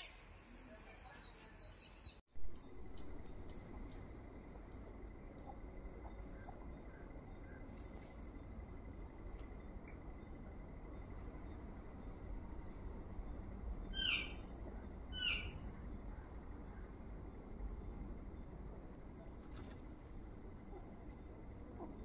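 Outdoor yard ambience: a steady high-pitched insect drone with a run of faint chirps, and two short bird calls about a second apart some two thirds of the way through. A brief loud thump about two seconds in.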